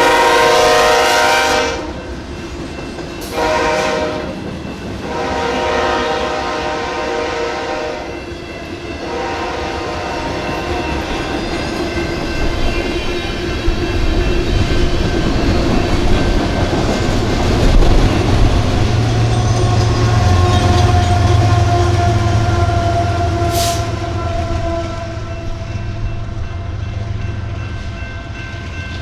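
Train horn sounding at a grade crossing in three blasts, the third about 8 seconds in and shorter, while the crossing's General Signal Type 2 electronic bell rings. The train then passes: a rumble builds to its loudest about 18 seconds in and settles into a steady low engine drone.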